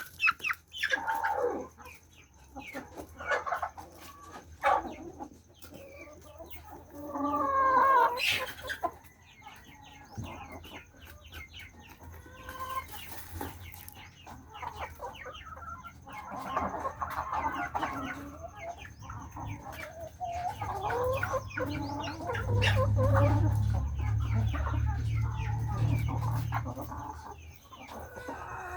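Backyard chickens clucking and calling, with many short calls and a louder call about eight seconds in. A low rumble runs under them through the second half.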